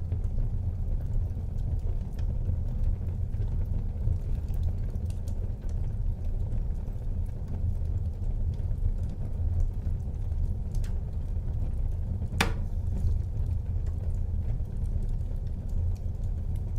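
Wood fire burning in a fireplace: a steady low rumble with a few scattered crackles, and one sharp pop about twelve seconds in.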